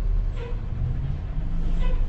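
Hino 500 diesel truck running on the road, its engine and road noise heard from inside the cab as a steady low rumble. Two brief high-pitched tones cut through, about half a second in and again near the end.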